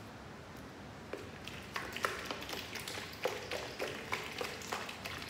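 Water pouring from a plastic bottle into a glass fishbowl, starting about a second in: an uneven run of glugs and splashes as air gulps back into the bottle.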